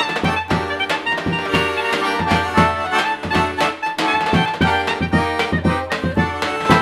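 Klezmer band playing an instrumental tune with a steady beat, sustained melody notes over a regular pulsing bass.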